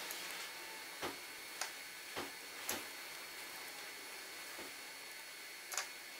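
Light metallic clicks and taps, about six, spread unevenly over a few seconds, from handling the gear housing of a hand-cranked grinder and screwing down its cover plate with a screwdriver. The loudest click comes near the end.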